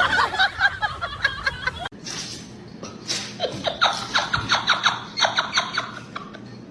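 Person laughing in quick repeated high giggles, in two bouts with a short gap just under two seconds in.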